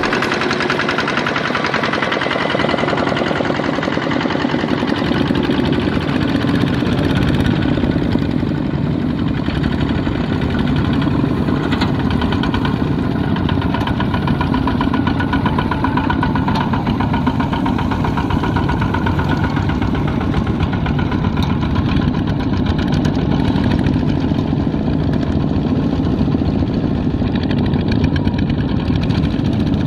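Kubota ZT155 horizontal single-cylinder diesel engine of a two-wheel walking tractor running steadily with a fast, even knocking beat while the tractor pulls a loaded trailer through mud.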